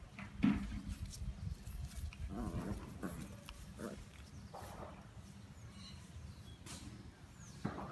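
A Lhasa Apso and a pug at play, making a handful of short vocal sounds. The loudest comes about half a second in, and a longer one with a wavering pitch follows a couple of seconds later.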